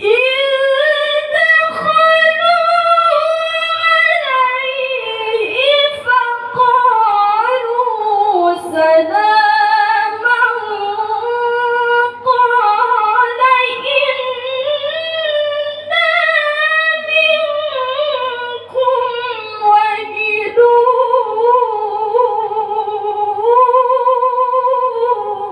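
A qari's melodic Qur'an recitation (tilawah): one high solo voice sung in long, ornamented phrases with wavering pitch and brief breaks for breath.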